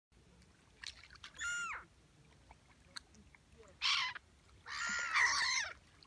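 Gulls calling: three harsh squawks, one about a second and a half in, another at about four seconds, and a longer one near the end.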